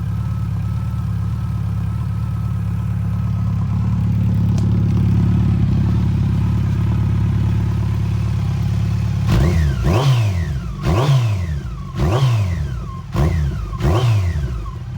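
Yamaha FJR1300's inline-four engine idling steadily through Delkevic oval slip-on silencers with the baffles removed, then revved in a series of quick throttle blips, about one a second, from about nine seconds in.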